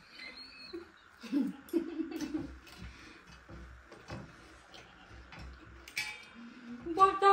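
Scattered small clicks and crunches of snacks being chewed, with a short hummed voice about a second and a half in and a loud drawn-out voice starting right at the end.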